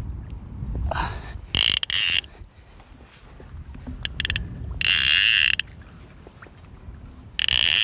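Baitcasting reel's drag clicking as a large wels catfish pulls line off against it, in three bursts of under a second each.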